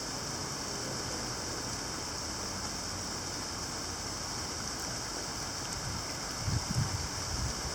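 Steady rain shower falling, a moderate rainfall hissing evenly, with a few low thumps near the end.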